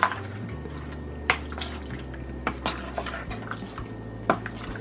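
A spoon stirring and folding dressed potato chunks in a plastic mixing bowl: wet stirring with a few sharp clicks of the spoon against the bowl, the loudest about a second in and again near the end.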